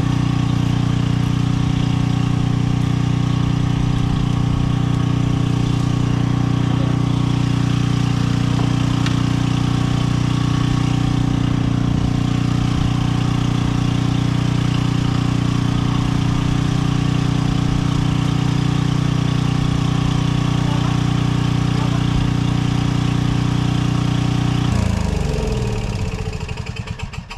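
A motor or engine running steadily, then winding down and stopping near the end, its pitch falling as it slows.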